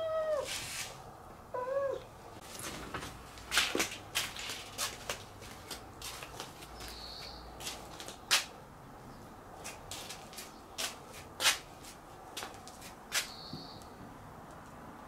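Calico cat meowing twice, two short calls within the first two seconds, followed by scattered sharp clicks and taps, several of them louder than the meows. Two brief high chirps sound later on.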